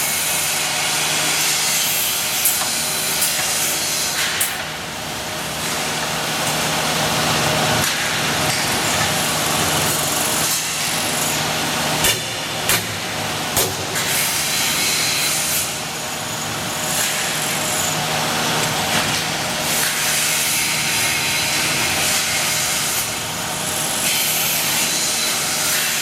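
Multi-spindle CNC drilling machine for iron running, a steady whir with hiss over a low hum. There are a few sharp knocks about halfway through.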